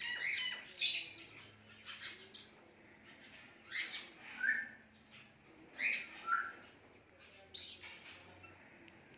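Indian ringneck parrot giving short calls in small clusters, separated by brief pauses.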